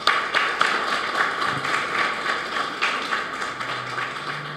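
Audience applauding, a dense patter of many hands clapping that eases off a little toward the end.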